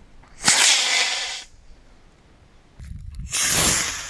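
Model rocket motor, a Quest C12 Q-Jet black-powder motor, firing: a sudden loud hiss that starts about half a second in and lasts about a second. A second burst of hiss comes near the end.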